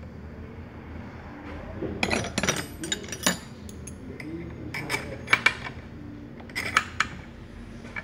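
Metal parts of a car starter motor clinking and tapping against each other as they are handled and fitted by hand: a string of sharp knocks from about two seconds in, loudest near five and a half and seven seconds.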